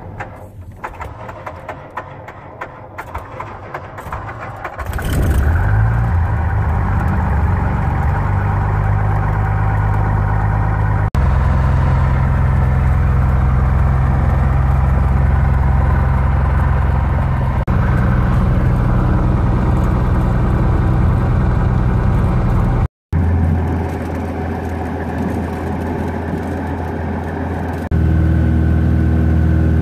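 Cessna 172's piston engine starting about five seconds in, then running with a steady propeller drone heard from inside the cabin, its note shifting in steps a few times.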